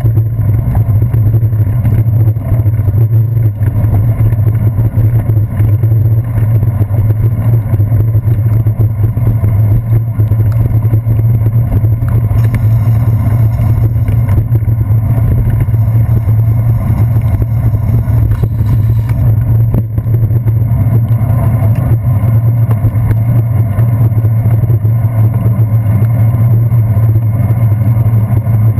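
A deep, steady rumble of wind buffeting and road vibration on a handlebar-mounted GoPro Hero 2 as a bicycle rides over wet pavement.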